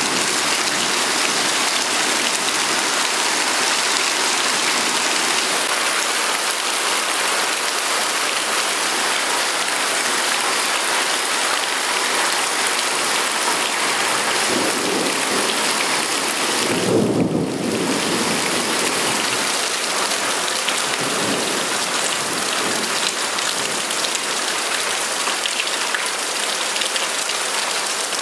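Heavy rain pouring steadily onto paving, a rubber mat and puddles in a thunderstorm. Low rumbles of thunder come a few times around the middle.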